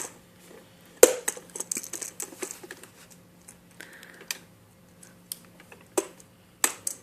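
Irregular clicks and clacks of hard plastic as a toy gumball machine and its balls are handled. The loudest click comes about a second in, followed by a flurry of small ones, then two more near the end.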